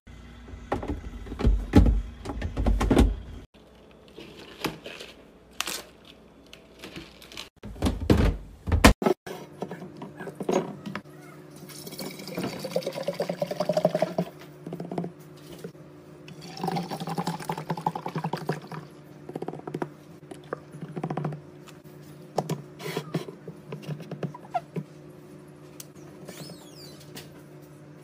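A few heavy thunks from containers being handled, then half-and-half poured from a carton into a glass jar: a gurgling pour whose pitch rises as the jar fills, heard twice.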